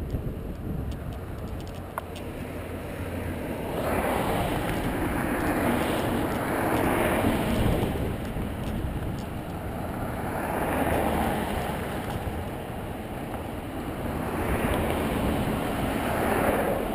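Cars passing on the road alongside, three swells of tyre and engine noise that each build and fade over a few seconds, over a steady low rumble of wind on the microphone.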